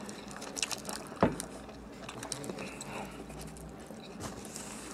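Close-miked eating sounds of someone biting and chewing a sub sandwich: wet mouth clicks and smacks, with one sharper click about a second in.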